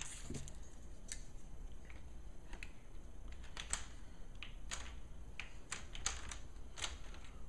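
Light, irregular plastic clicks and taps as the Asus UL50VT laptop's plastic screen bezel is handled and fitted over the display panel.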